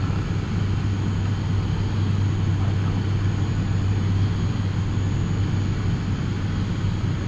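ATR 72's Pratt & Whitney PW127 turboprop engines and propellers running steadily at climb power, heard inside the cockpit as a constant deep hum with a strong low tone.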